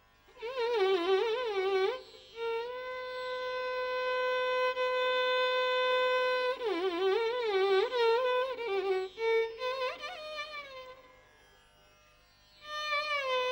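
Carnatic violin playing phrases in raga Kalyani, with wavering gamaka ornaments and a long held note of about four seconds, broken by short pauses between phrases.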